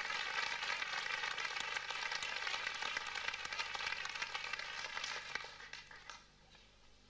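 Theatre audience applauding, a dense patter of clapping that dies away about six seconds in.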